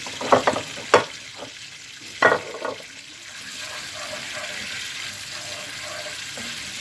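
Kitchen work: dishes and utensils clatter sharply a few times, about once every second, over a steady hiss.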